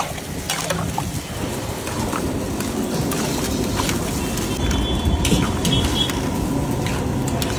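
A metal spatula stirring and scraping through boiled-egg curry in a large wok, with scattered clicks and scrapes against the pan over a steady rushing noise from the stove and the bubbling gravy.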